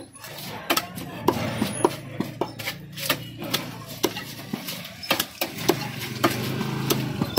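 A heavy curved fish-cutting knife chopping through a rohu into steaks on a wooden log chopping block: sharp, irregular knocks about two a second, over a steady low hum.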